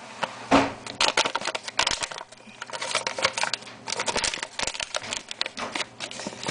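Small gummy fruit bites being shaken out of a resealable snack pouch and pushed about on a countertop by hand: an irregular run of light taps and clicks with pouch crinkling.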